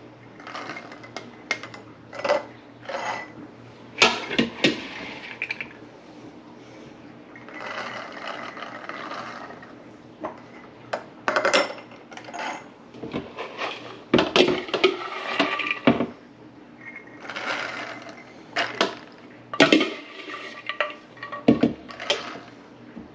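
Shelled English peas scooped with a coffee cup from a plastic bowl and poured through a plastic canning funnel into glass pint jars: repeated rattling pours of peas into the glass, broken by sharp clinks of the cup and funnel against the jars.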